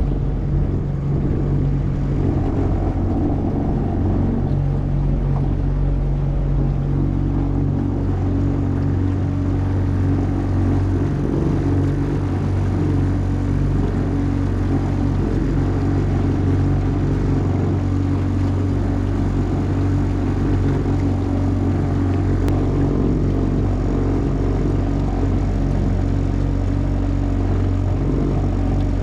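Boat engine running steadily with a low hum.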